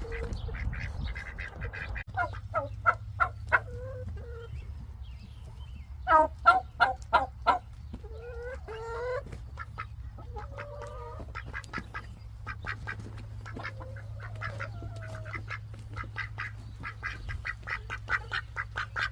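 Ducks quacking in groups of short calls, with a denser, faster run of quacks near the end, over a steady low hum.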